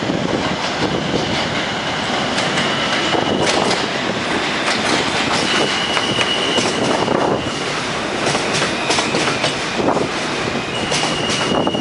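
New York City subway train pulling into a station: a steady rumble of wheels on rail with clicks over rail joints, and a high wheel squeal three times, a few seconds in, in the middle and near the end.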